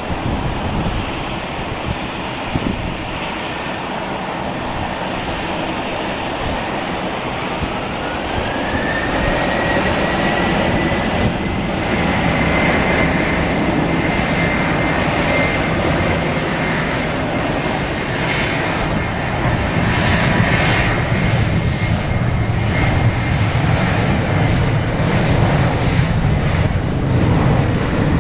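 Boeing 737-800's CFM56-7B turbofan engines spooling up to takeoff thrust. A whine rises about eight seconds in and then holds steady, while the low rumble of the engines builds and grows louder toward the end.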